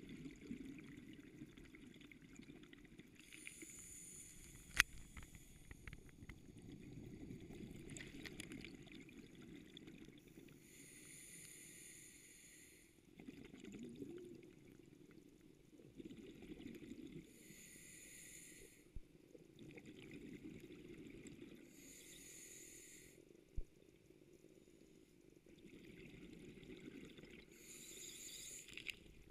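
Scuba diver's breathing heard underwater through a GoPro housing: a bubbly hiss of exhaled bubbles from the regulator five times, about every five or six seconds, over a low muffled rumble. A sharp knock about five seconds in, and a smaller one later.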